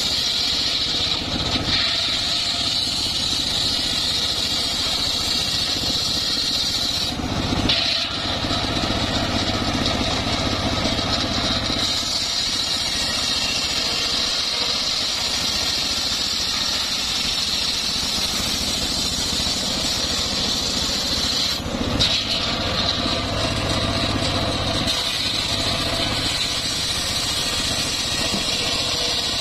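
Homemade engine-driven circular sawmill running steadily, its big blade cutting lengthwise through a trembesi (rain tree) log with a steady high whine over the engine's drone. Two brief knocks about eight and twenty-two seconds in.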